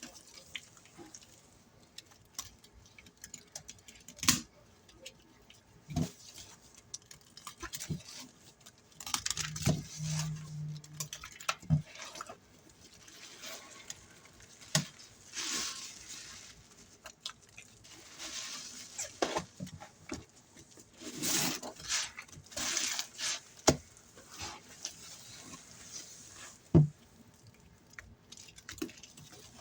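Soapy sponge loaded with a cleaning-powder and soap paste being squeezed by hand, giving irregular wet squelching and crackling bursts with sharp clicks and pops.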